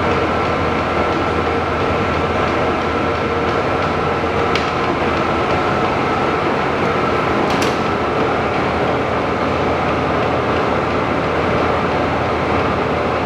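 Monarch Model 613 toolroom lathe running with its carriage power rapid traverse engaged: a steady mechanical whir with a thin whine, broken by a couple of light clicks.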